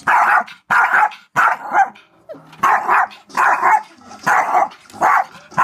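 Yorkshire terrier barking over and over, about seven barks in quick succession with a short pause about two seconds in.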